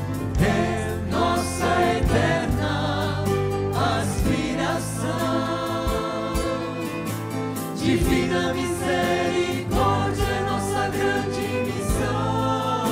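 Mixed choir of women's and men's voices singing a hymn, backed by a steady low bass line and a regular beat.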